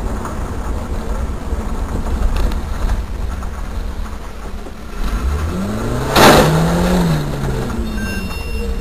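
Dashcam recording of a car driving on a winter road: steady engine and tyre rumble. About six seconds in there is a sudden loud burst, and an engine note rises and then falls as a truck draws near.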